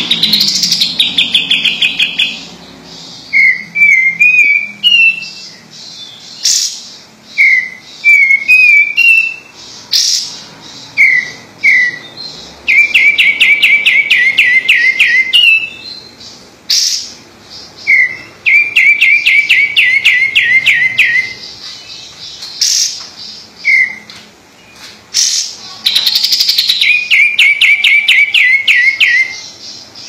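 A caged kapas tembak bulbul singing persistently. It gives several runs of rapid repeated notes, each lasting two to three seconds and slightly falling in pitch, with short single rising whistled notes between the runs. Occasional sharp clicks are heard as well.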